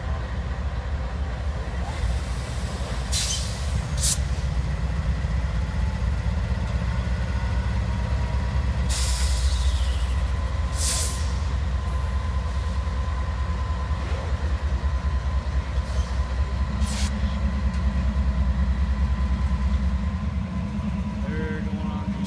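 Two Norfolk Southern diesel locomotives moving slowly past, their engines giving a steady low rumble, with several short hisses and a faint steady whine in the second half.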